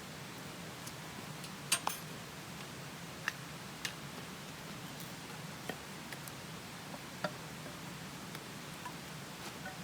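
Wood fire crackling: irregular sharp pops and snaps over a steady low rush.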